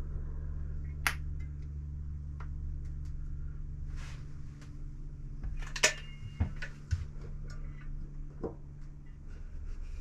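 Hardware and tools being handled: a few scattered light clinks and knocks, the sharpest about six seconds in, over a steady low hum.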